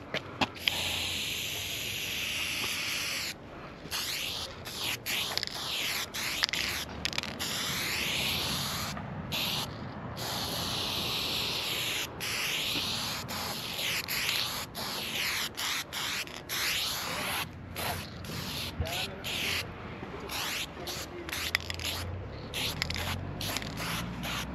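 Spray paint can fitted with a wide BIG Shotty ULTRA cap, hissing out paint in long strokes of a few seconds each with short pauses between, turning to shorter quick bursts near the end.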